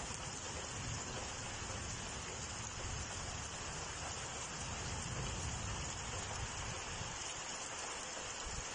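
Strong wind blowing, with gusts buffeting the microphone in uneven low rumbles over a steady hiss.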